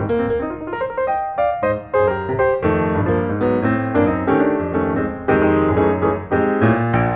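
Background piano music: a steady run of quick notes over a lower bass part.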